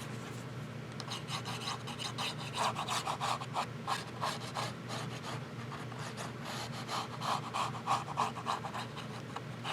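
Glue being spread across a panel of scored cardstock: a run of short, quiet rubbing strokes on the paper.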